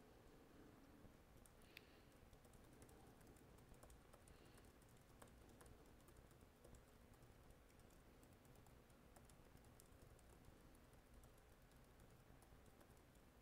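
Faint typing on a computer keyboard: an irregular run of soft key clicks over a low room hum.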